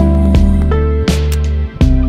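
Indie pop song with guitar and a steady beat, played back through a Whitestone P331 tube loading amplifier.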